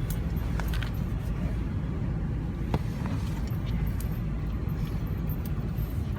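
Ford Expedition's 4.6L Triton V8 running steadily, a low rumble heard from inside the cabin, with a few light clicks scattered through it.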